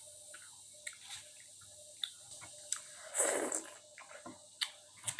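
A person eating a bowl of luosifen noodles: quiet chewing and wet mouth sounds with scattered small clicks, and one louder, brief noisy sound about three seconds in.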